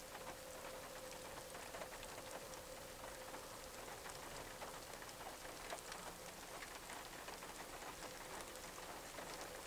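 Rain falling steadily, with scattered drop ticks, and a faint steady hum underneath.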